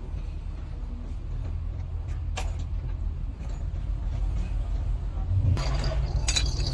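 A motor running with a steady low rumble. There is a sharp click about two and a half seconds in, and a hiss, then a thin high whine, joins about a second before the end.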